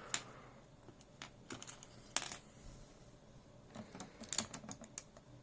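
Keystrokes on a mechanical keyboard fitted with freshly lubed and filmed MX-style switches: scattered, irregular key presses that sound quiet.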